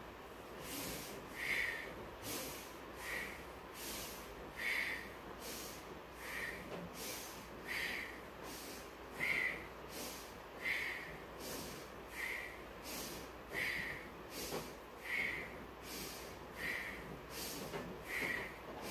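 A woman's forceful, paced breathing during a fast yoga core exercise, inhaling as the knees come in and exhaling as the legs extend. There is a short, sharp breath about every three-quarters of a second, so one full in-and-out about every second and a half.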